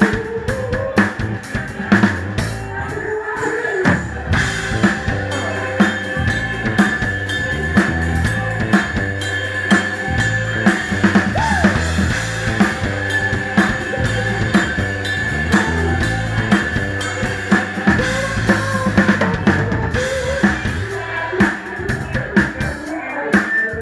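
Live band playing, heard from right beside the drum kit: kick, snare and cymbals loud and up front in a steady groove, with guitar and bass behind them.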